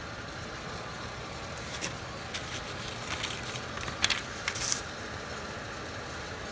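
Paper instruction booklet rustling and crinkling as a hand turns and handles its pages, a few short crinkles in the middle, loudest around four seconds in, over the steady idle of a 2006 Pontiac G6's 3.5-litre V6.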